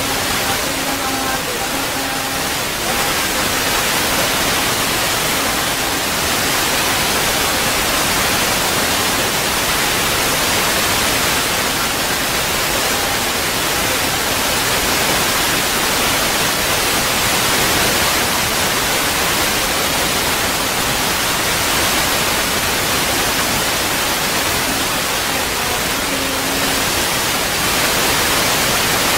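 Steady, loud static-like hiss. A faint held tone sits under it for the first couple of seconds and again briefly about 26 seconds in.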